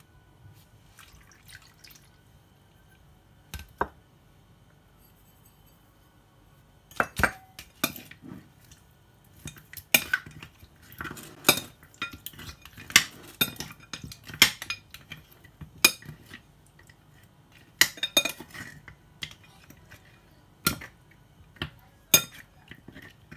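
A utensil clinking and knocking against a ceramic bowl at irregular intervals as raw goat meat is mixed in liquid, with faint pouring and dripping in the first few seconds.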